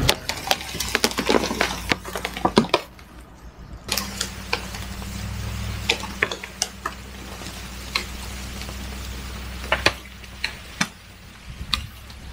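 Pickup truck engine running steadily at low revs while towing a log on a strap. The dragged log sets off a string of sharp cracks and crackles from twigs and branches snapping and scraping underneath.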